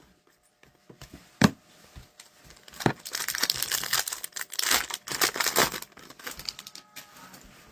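Foil wrapper of a hockey card pack crinkling and tearing as the pack is opened, with two sharp clicks before the rustling.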